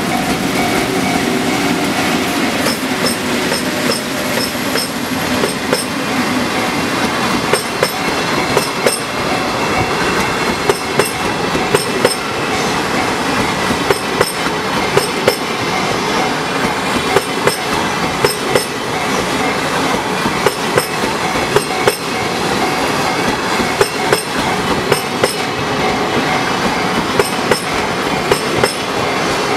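A 10-car train of JR East 24 series 25-type sleeper coaches rolling past at the crossing, its wheels clattering over rail joints in regularly spaced pairs of clacks over a steady rumble.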